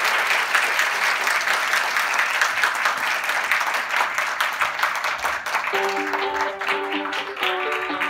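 A hall audience applauding steadily as a speaker walks on stage. About three-quarters of the way through, music with sustained notes fades in under the clapping, which thins out near the end.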